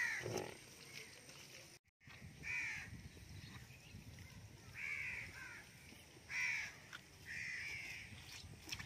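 Crows cawing repeatedly, short harsh calls every second or two.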